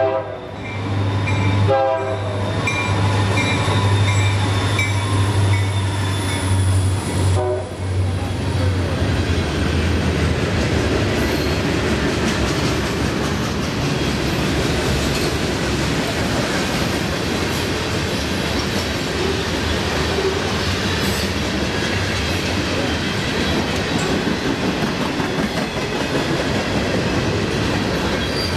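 Freight train passing close by. The two diesel locomotives go by first with a low engine drone and short horn blasts, at the start, about two seconds in and about seven seconds in. From about eight seconds in, the freight cars roll past with steady wheel and rail clatter.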